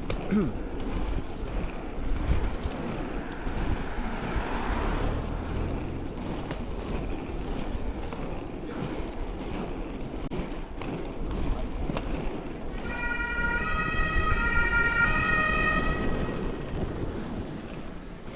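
Inline skate wheels rolling over a rough, unpaved path, a steady rumble mixed with wind on the microphone. About two-thirds of the way through, a cluster of high steady tones sounds for roughly three seconds.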